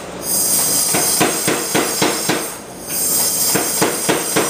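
Pneumatic power hammer striking hot steel in rapid blows, about four a second, over a hiss of air. The blows and hiss pause briefly near the middle, then resume.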